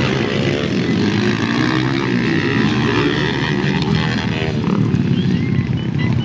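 Underbone race motorcycle engines running at high revs as the bikes race, with a steady, dense engine drone.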